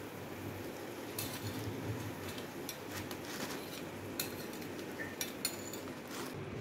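Metal spatula clinking and scraping against a ceramic plate and a nonstick tawa as a cooked paratha is set down on the plate: a scatter of light, irregular clinks over a steady background hiss.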